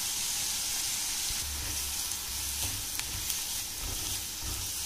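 Chopped onions, tomatoes and green chilli-ginger-garlic paste sizzling in oil in a nonstick frying pan as they are sautéed and stirred with a silicone spatula, with a light click of the spatula against the pan about three seconds in.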